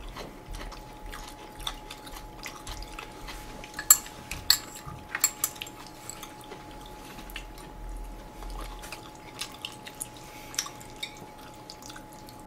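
Quiet eating at a table: scattered sharp clicks and taps of chopsticks and spoons against ceramic bowls and plates, mixed with wet mouth sounds of chewing; the sharpest clicks come around four to five seconds in. A faint steady tone runs underneath.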